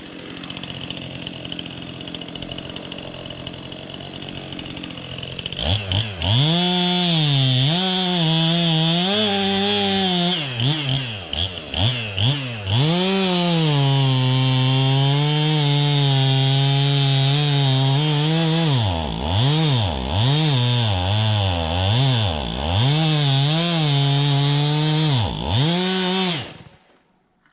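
Two-stroke chainsaw running low at first, then opened up about six seconds in and cutting into a tree, its pitch rising and dropping over and over as the chain loads in the wood and revs free. The saw stops suddenly near the end.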